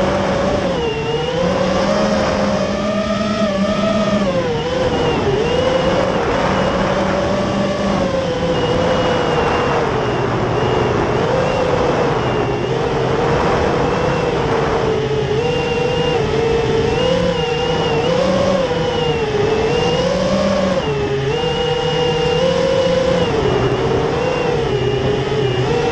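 FPV quadcopter's electric motors and propellers whining, heard from the onboard camera, the pitch rising and falling every second or so with the throttle. Rushing air noise runs under the whine.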